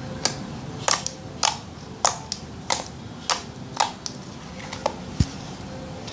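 Creamy glue slime being squeezed and stretched by hand, making sharp sticky clicks and pops about twice a second, with one low thump about five seconds in.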